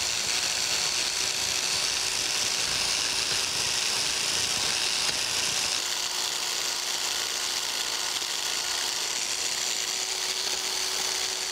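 Biax electric power scraper running steadily, its reciprocating blade scraping the metal dovetail of a planer cross slide.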